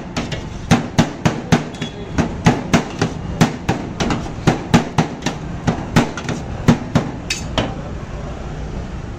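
Two flat steel spatulas chopping and tossing shredded shawarma chicken on a large round steel pan: a quick, irregular clatter of metal striking metal, about three strikes a second, stopping near the end.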